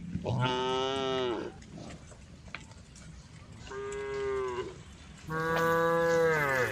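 Cows mooing in a herd: three drawn-out moos, each about a second long, with the pitch dropping at the end of each.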